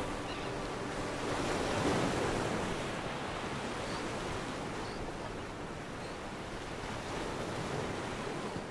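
Sea waves washing against a rocky shore: a steady hiss of surf that swells about two seconds in, then slowly eases. The last notes of background music fade out in the first second and a half.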